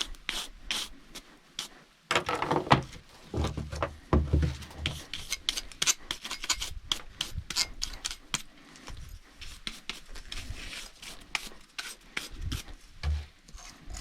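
Rapid, irregular brushing and scraping strokes while cleaning sawdust and grime off a chainsaw, with a few heavier knocks.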